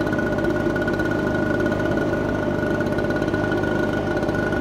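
Engine running at a steady speed, a constant drone with a steady high whine over it.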